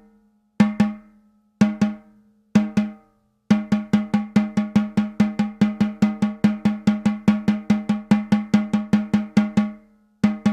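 Snare drum struck four times about a second apart, then a steady, evenly spaced roll of strokes for about six seconds: a double stroke roll with both strokes of each pair played equally loud.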